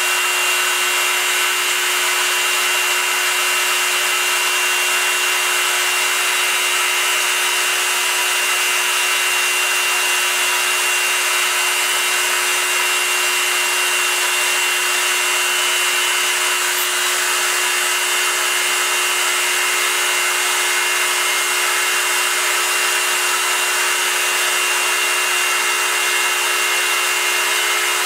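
Proxxon MF 70 mini milling machine (CNC-converted) with its spindle running at high speed as a small end mill cuts aluminium: a steady, high-pitched whine with a hiss over it.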